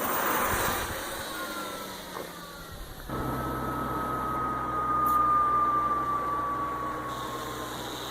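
Zero SR electric motorcycle's motor whine, one high tone that slowly falls in pitch as the bike slows, over a steady low hum. For the first three seconds there is mostly a rushing road and wind noise.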